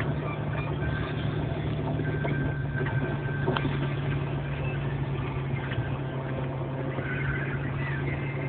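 Steady low rumble of a vehicle engine, with one faint click about three and a half seconds in.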